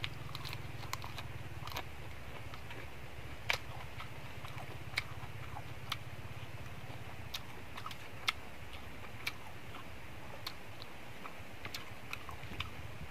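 Close-up eating sounds: a person chewing lettuce and fried fish, with scattered sharp crunches and mouth clicks at an irregular pace, over a steady low hum.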